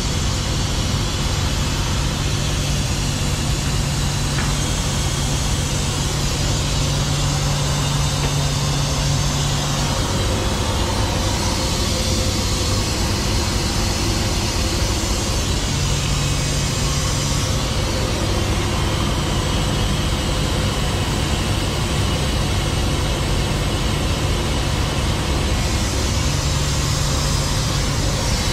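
Kenworth semi truck's diesel engine idling steadily. A strong low hum over it drops out about ten seconds in, comes back briefly, then returns near the end.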